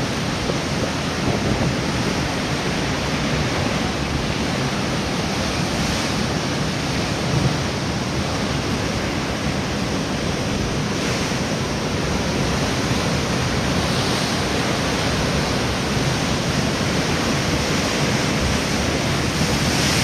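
Heavy storm surf breaking against a stone pier wall: a dense, steady rush of water and spray, swelling a few times as bigger waves hit. Strong wind buffets the microphone.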